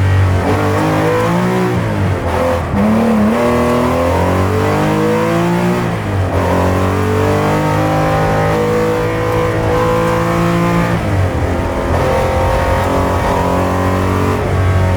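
Porsche 911 930's air-cooled turbocharged flat-six under hard acceleration, heard from inside the cabin: the engine note climbs in pitch and drops back sharply three times as the car is driven flat out along a rally stage.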